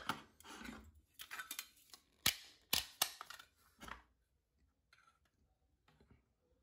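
Faint handling noises: short rustles and several sharp clicks over the first four seconds, then near silence.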